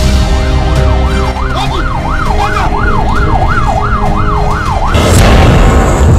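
A siren wailing up and down in a fast yelp that quickens as it goes, over a low rumble. About five seconds in, a loud rush of noise takes over.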